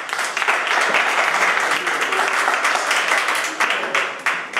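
Applause: many people clapping at once, thinning out near the end.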